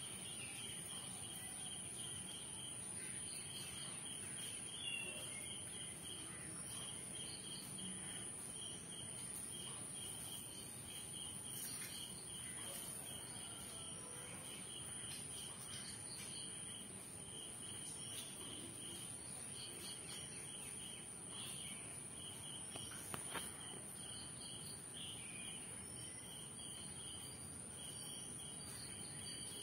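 Crickets chirping in a steady pulsed trill over a constant high-pitched whine, with a few faint clicks.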